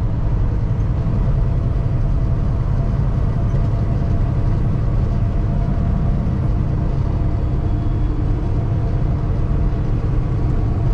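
The Paccar MX13 diesel engine of a 2016 Kenworth T680 semi truck running steadily at highway cruise, heard from inside the cab along with a low rumble of road and tyre noise.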